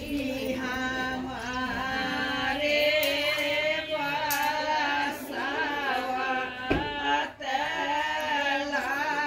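A devotional song: a woman singing a wavering, ornamented melody over a steady held tone.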